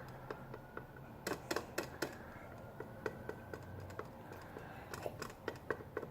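Light, irregular clicks and taps of a plastic glue bottle being squeezed out over a cup of water, a few a second, a couple of them sharper.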